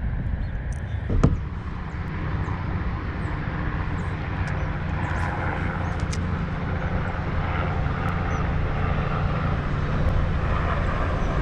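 Steady low engine drone, with a single sharp knock about a second in.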